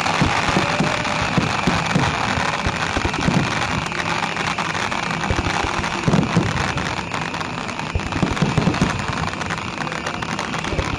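Fireworks going off: a dense, continuous crackle with scattered low thuds of bursting shells.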